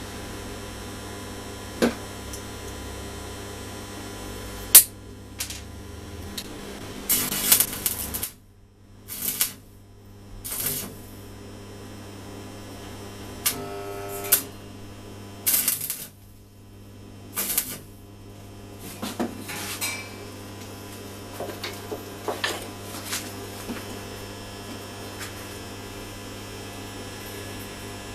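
Arc welding on a steel rod frame: several short tack welds, each a crackling burst of about a second, between roughly seven and twenty seconds in. A steady electrical hum runs underneath, and a few sharp metal clicks come before and after the welds.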